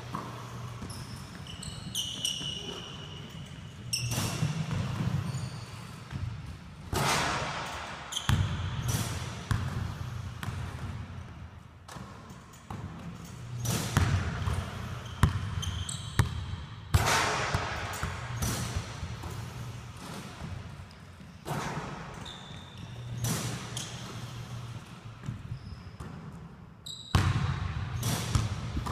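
Basketballs bouncing on a hardwood gym floor and striking the rim and backboard during a shooting drill, with short high squeaks of sneakers. The impacts come irregularly throughout, ringing on in the large hall.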